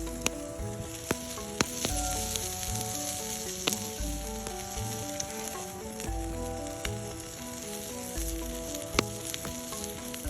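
Food sizzling as it fries in a pan, with a steady hiss and a few sharp pops of spitting fat. Soft background music plays under it.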